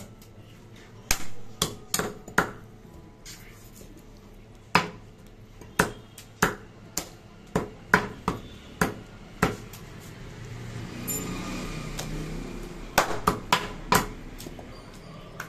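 Heavy steel meat cleavers chopping goat meat and bone on a wooden stump chopping block. The chops are sharp and irregular, some coming in quick pairs, with a pause of about two seconds after the first few strokes.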